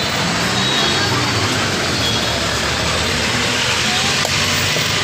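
Steady street noise of road traffic, with vehicle engines running under a continuous loud hiss.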